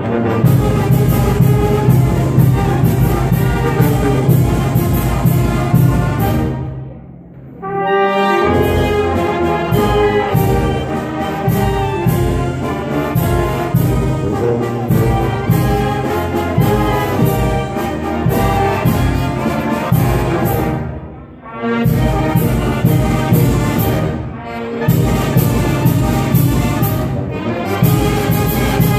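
Brass band music with trumpets and trombones playing a dance tune over a steady beat. The music breaks off briefly about seven seconds in and again about twenty-one seconds in, then carries on.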